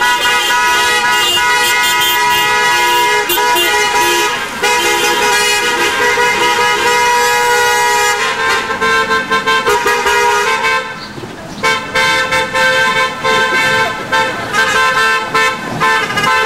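Several car horns honking at once, held nearly without a break as a convoy of cars drives past. The honking briefly lets up about eleven seconds in.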